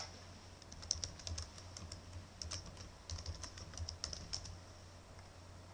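Computer keyboard typing a username and password: a quick run of faint key clicks lasting about three and a half seconds, then stopping.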